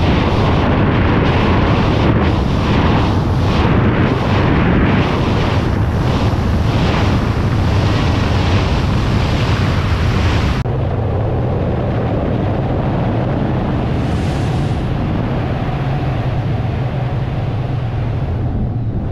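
Loud wind rush buffeting the camera's microphone during wingsuit flight, gusting and fluttering at first; about ten seconds in it changes abruptly to a steadier, duller rush as the footage cuts to another flight.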